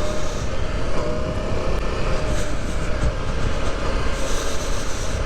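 Motorcycle riding over a rough, stony off-road track: engine noise mixed with a steady rough din of the bike jolting and rattling, with many small knocks.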